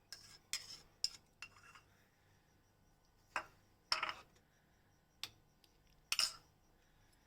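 A small spoon clinking and scraping against a miniature metal pot while soaked masoor dal is added to the hot water. There is a quick run of light taps and scrapes at first, then a few separate clinks and short scrapes.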